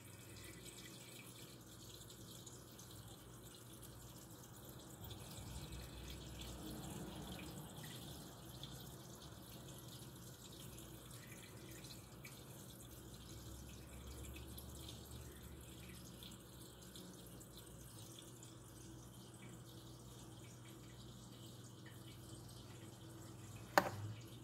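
Faint steady low hum with scattered soft ticks, and one sharp click near the end.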